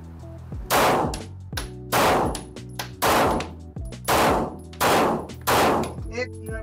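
Six 9mm shots from a Glock 17 pistol fired one-handed with the weak hand, spaced roughly a second apart at an uneven, slow pace, each shot trailing off in the range's reverberation.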